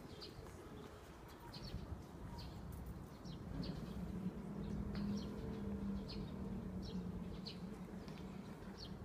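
Birds chirping outdoors: short high chirps scattered throughout, over a low steady hum that grows a little louder about three seconds in.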